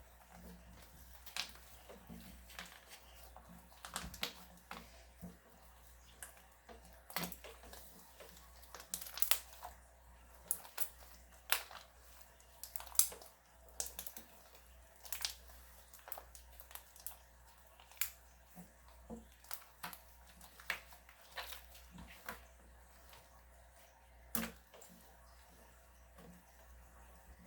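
Slime being squeezed and poked by hand, giving faint, irregular sticky clicks and pops.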